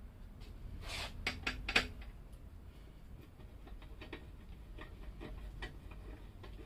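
Hand tool clicking and light metal knocks as a fender strut bolt is worked loose on a Harley-Davidson Slim: a quick run of sharp clicks about a second in, then a few scattered softer ticks.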